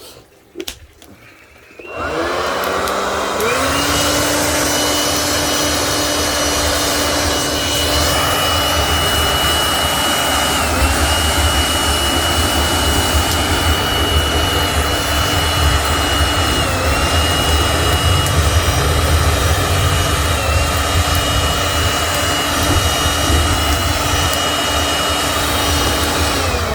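Electric blower switched on: its motor spins up to a steady high whine over a low rumble of moving air, dips briefly in pitch three times as if loaded, and winds down as it is switched off at the end.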